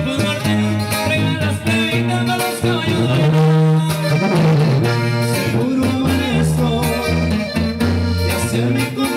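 Live band playing a corrido on tuba, button accordion and acoustic guitar, with a walking tuba bass line under accordion melody and sung vocals.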